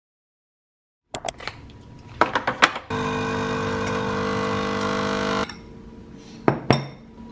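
About a second of silence, then a few sharp clicks, then a pod coffee machine's pump buzzing steadily for about two and a half seconds as it dispenses coffee into a mug, stopping suddenly. Two light knocks follow near the end.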